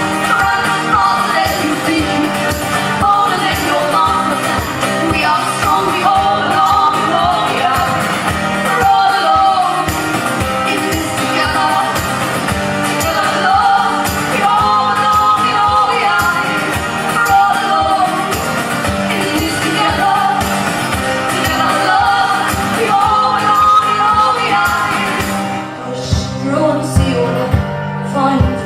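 A live band song: voices singing over strummed guitars. About 26 s in the singing drops out and the rhythmic guitar strumming carries on.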